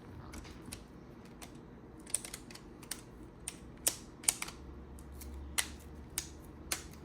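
Plastic back cover of a Nokia G21 phone being pressed on, its clips snapping into place: a run of irregular sharp clicks, sparse at first and more frequent from about two seconds in.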